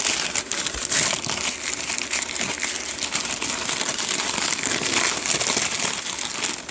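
Packaging crinkling and rustling continuously, with many small crackles, as a taped-up lock is unwrapped by hand.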